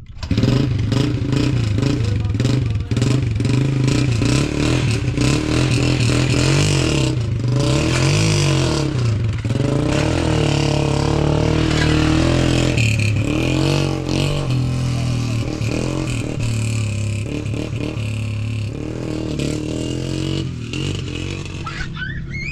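An engine running, its pitch rising and falling as it revs.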